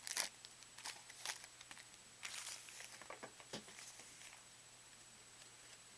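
Trading cards being handled and sorted by hand: faint rustles and light clicks of cardboard cards, busiest in the first few seconds, then dying away.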